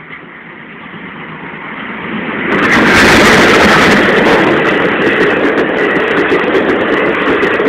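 Maharaja Express luxury train approaching and passing close by at speed: the rumble builds steadily and is loudest about three seconds in as the locomotive goes by, then the coaches' wheels clatter past steadily.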